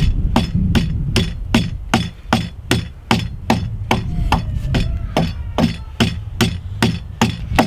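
Hatchet chopping into a log's notch in quick, evenly paced short strokes, about two to three hits a second.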